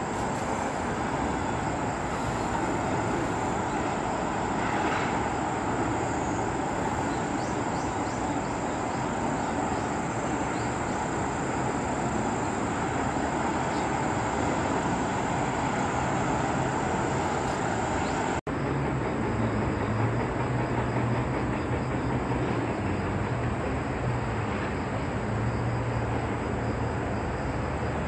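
Steady distant traffic noise from the busy elevated highways and rail lines below, with a momentary break in the sound about two-thirds of the way through.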